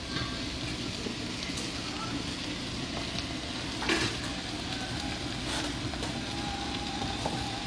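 Chopped greens (poi bhaji, Malabar spinach, and moringa leaves) frying in hot oil with garlic and onion in a stainless steel pan: a steady sizzle. There is a sharp knock about four seconds in and a lighter one a second and a half later.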